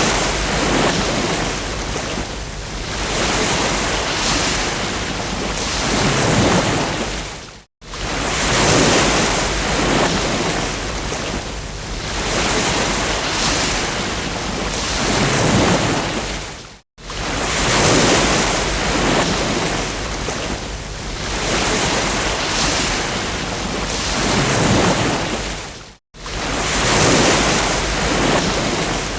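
Ocean waves breaking on a beach, the surf swelling and fading every few seconds. The sound cuts out briefly about every nine seconds.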